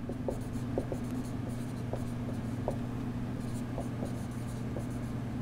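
Dry-erase marker writing on a whiteboard: small taps of the tip and short scratchy strokes as letters are written, over a steady low hum.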